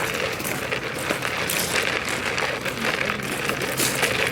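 Busy outdoor market ambience: a steady noisy bustle full of small clicks and rattles, with a faint low hum underneath.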